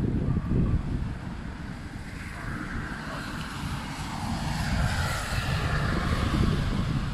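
A car passing on a wet road, its tyre hiss swelling from about two seconds in, peaking and then fading, over gusty wind buffeting the microphone.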